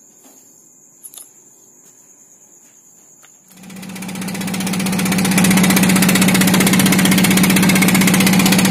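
Fishing boat's engine running steadily under way, fading in about three and a half seconds in and becoming loud, with a strong low hum. Before it, only a faint steady high whine and a few soft clicks.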